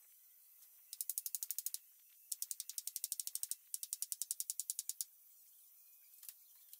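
A ratchet clicking in three quick runs of about a dozen sharp clicks a second, each run a second or so long, with a single click near the end.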